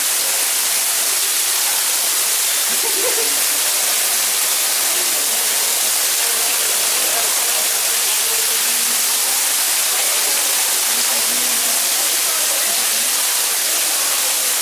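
Artificial waterfall in an indoor rainforest exhibit, water falling over rocks in a steady, loud, even rush.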